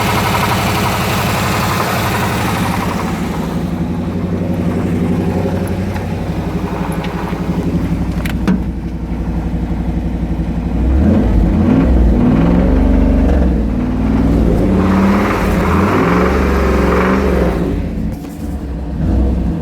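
1995 Camaro Z28's 5.7-litre LT1 V8 running and being revved: the revs fall off in the first few seconds, the engine runs steadier for a while, then is blipped again from about halfway, loudest a little past the middle of the second half. The owner asks whether its noise is rod knock.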